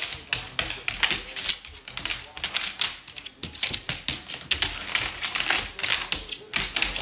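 A large dog's claws clicking and skittering on a hardwood floor in quick, irregular taps as it scrambles after a laser pointer dot.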